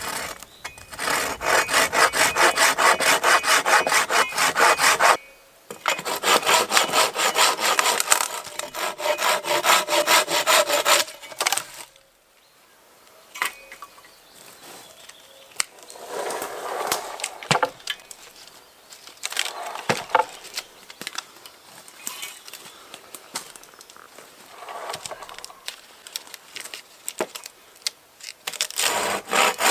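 Hand saw cutting wood in quick back-and-forth strokes, about three a second, with a short break about five seconds in. The sawing stops near the middle, quieter knocks and rustling follow, and it starts again near the end.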